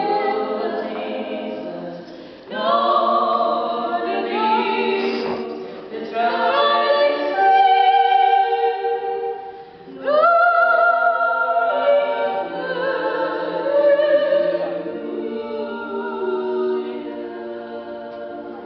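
A small group of women singing a cappella, unaccompanied voices in sustained phrases that break briefly every few seconds and fade toward the end.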